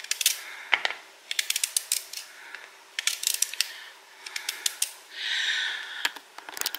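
Small knife slicing through a raw sweet potato held in the hand, crisp clicking cuts coming in quick clusters, with a short scraping stroke about five seconds in.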